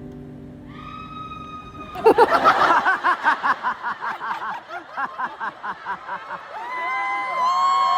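A person laughing hard in quick, rapid bursts for about four seconds, after a short high vocal sound. Near the end come high-pitched screams from a concert crowd.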